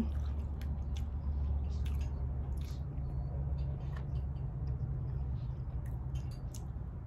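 A person chewing food close to the microphone: scattered small wet clicks and smacks of the mouth, over a steady low hum.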